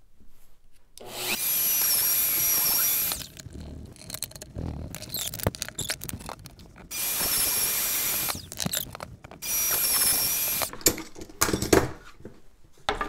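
Bosch router running in three short bursts of a couple of seconds each, its motor whining at a steady high pitch as it cuts 4 mm deep pockets for ebony plugs through a template into a wooden chair back splat. Knocks and clatter fall between the runs, with a few sharp knocks near the end.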